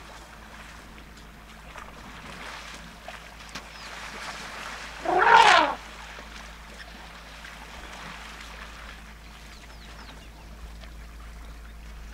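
A young elephant bull trumpets once, about five seconds in: a short, loud call that rises and then falls in pitch. Around it, steady sloshing and splashing of water as the bulls wrestle.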